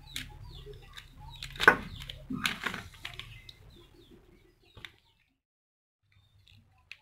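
A kitchen knife cutting through a large prawn's shell on newspaper: crackling and rustling, with one sharp loud click about a second and a half in. A low hum stops about five seconds in, and only a few faint clicks follow.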